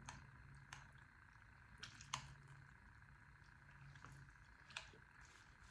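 Faint eating sounds from a bowl of noodle soup: quiet chewing with about five small sharp clicks.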